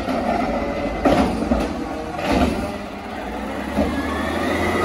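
CNG Peterbilt 520 garbage truck with a McNeilus ZR automated side loader, its engine running, with several clanks and knocks and a thin whine rising near the end.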